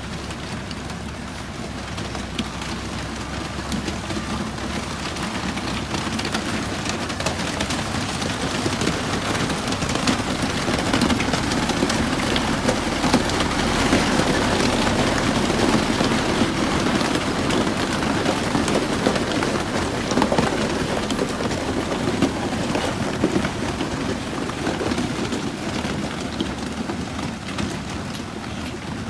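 Heavy earthmoving machinery working loose gravel: a diesel engine running under a dense, rain-like rattle and crunch of stones, which grows louder through the middle and then eases.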